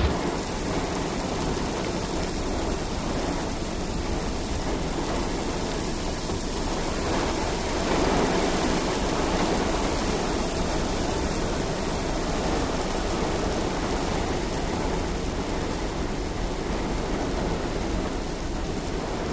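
Rain falling steadily, an even hiss that swells a little about eight seconds in.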